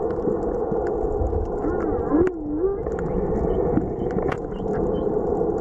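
Underwater sound picked up by a snorkeller's camera: a steady rush of water noise with scattered sharp clicks, and a single wavering moan-like tone about two seconds in.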